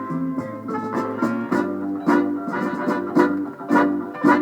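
Soul band playing an instrumental passage between sung lines, with guitar over a steady drum beat.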